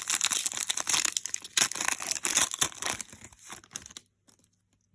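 Foil wrapper of a trading-card pack crinkling and tearing as it is opened by hand. It stops about four seconds in.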